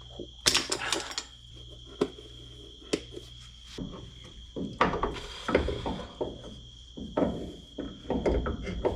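Hand tools and metal suspension parts clanking and knocking irregularly while a front shock is fitted: a few single sharp knocks, then denser clattering in the second half, over a steady faint hum.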